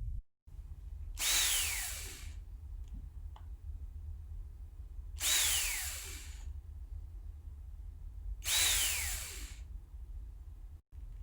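Electric drill run in three short bursts of about a second each. In each burst the motor's whine falls steadily in pitch as it winds down. A steady low hum runs underneath.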